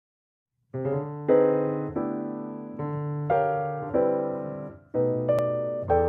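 Background piano music: a run of chords struck one after another, each ringing and fading, starting after a brief silence.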